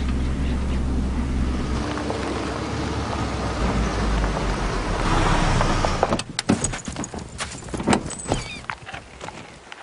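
Subaru SUV driving on a dirt track: steady engine and tyre noise with a low hum, which drops away about six seconds in. A run of sharp knocks and thumps follows, with a few short high chirps near the end.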